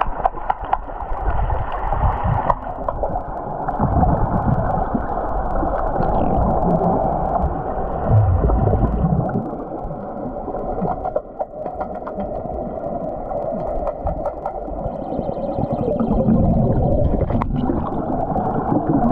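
Muffled rushing and gurgling of pool water and bubbles heard through an underwater camera, with irregular low thumps and knocks as swimmers move through the water.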